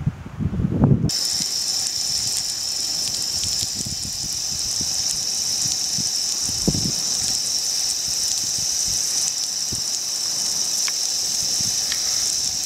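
Outdoor beach shower running, water spraying as a steady, high-pitched hiss that starts suddenly about a second in.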